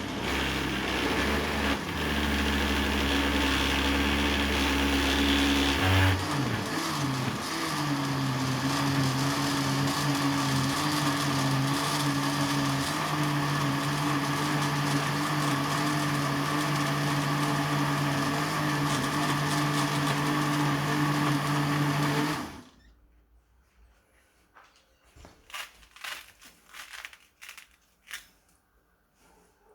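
Electric kitchen blender running, its motor pitch shifting about six seconds in, then switched off and stopping abruptly about 22 seconds in. A few light clinks and knocks follow near the end.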